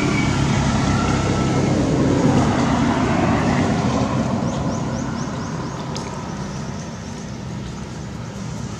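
A motor vehicle engine running with a steady low hum over a rush of noise, slowly growing fainter. A few short high chirps come about halfway through, and a single click follows soon after.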